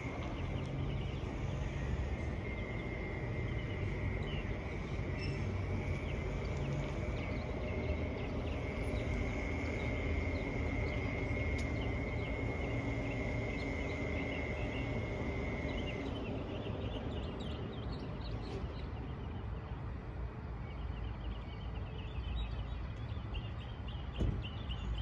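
Outdoor ambience: a steady, high insect buzz that stops about two-thirds of the way through, then scattered small bird chirps, over a low, constant rumble.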